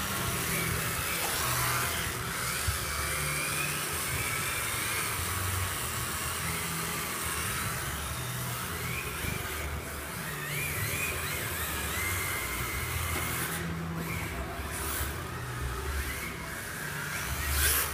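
Electric motors of MST FXX-D rear-wheel-drive RC drift cars whining, the pitch rising and falling with the throttle as the cars slide through the corners.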